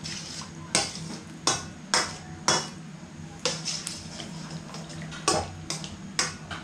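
Metal spoon clinking and scraping against a stainless steel wok as meat and squid balls are stirred in a little water: about ten sharp clinks, irregularly spaced.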